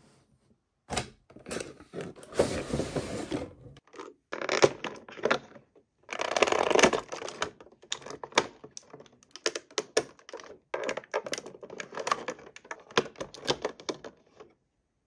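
Toy packaging being handled and opened: a cardboard box and plastic inserts rustling and crackling, with many quick sharp clicks, starting about a second in and stopping shortly before the end.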